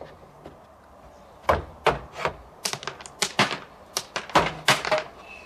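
River rocks clattering: a quick, irregular string of sharp clacks as stones knock together and drop, starting about a second and a half in.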